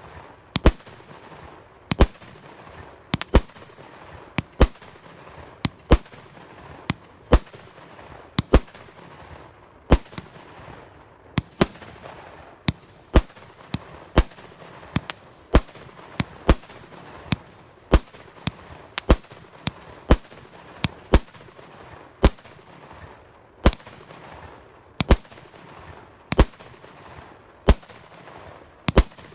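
'Implosion SU-61' multi-shot fireworks cake firing in sequence: sharp reports roughly once a second, with hissing and crackling between them.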